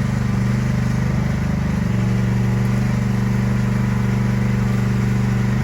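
Diesel engine of a 450C crawler dozer running steadily with an even firing rhythm.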